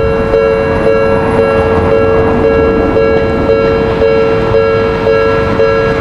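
Japanese level-crossing warning bell ringing steadily, striking about twice a second, over the noise of a train running through the crossing.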